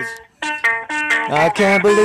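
Music: a singing voice in short held notes, after a brief dip in level just at the start, then a note that bends in pitch about a second and a half in.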